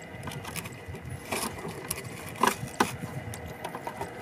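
Metal clicks and rattles of pliers and a lip-grip tool working a hollow frog lure's hooks free from a snakehead's mouth, a few sharp clicks standing out in the middle, over a steady faint hum.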